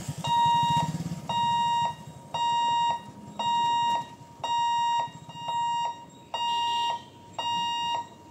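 Level-crossing warning buzzer beeping a steady electronic tone about once a second, each beep about half a second long. It is the warning that the gate booms are closing for an approaching train.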